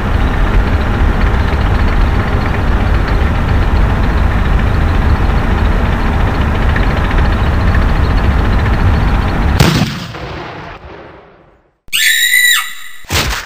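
Gunfire and explosion sound effects: a long stretch of loud, dense rumbling blasts that stops abruptly about ten seconds in and dies away. Near the end comes a short pitched tone that slides down, followed by a few sharp clicks.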